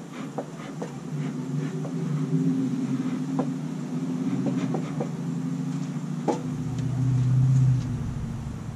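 Honeybees humming steadily over an opened Langstroth hive, with light clicks and scrapes of a hive tool on the wooden frames. A low vehicle rumble swells about six seconds in and fades near the end.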